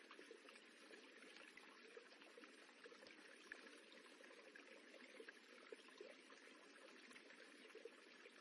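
Running water rippling, a faint steady wash with small plinks and splashes scattered through it.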